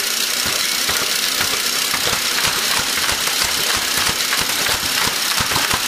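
Small 3-channel coaxial RC helicopter in flight, its electric motors and rotors whirring steadily.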